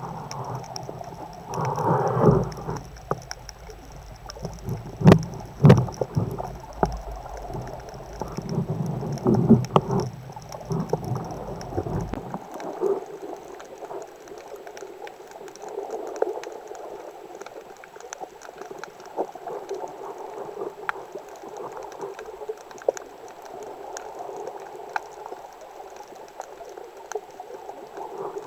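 Underwater sound picked up by a diver's camera: a steady muffled hiss scattered with faint clicks and crackles. Low bumps and knocks, loudest about five to six seconds in, come and go through the first twelve seconds and then stop.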